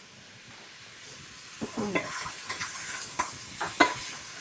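Sausage sizzling in a frying pan, with a utensil scraping and knocking against the pan several times from about two seconds in as the meat is stirred and broken up.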